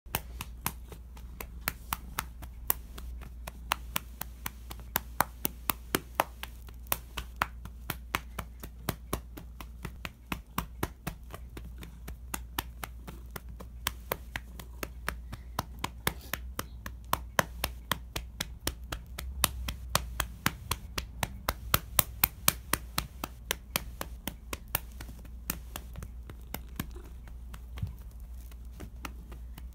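A hand patting and lightly slapping a cat's furry rump over and over, sharp quick pats at an uneven pace of about two a second.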